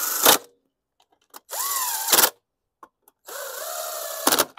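DeWalt cordless impact driver with a socket extension driving fasteners on the mower's engine: three short runs, each longer than the last, the motor's pitch rising then holding, each run ending with a sharp click.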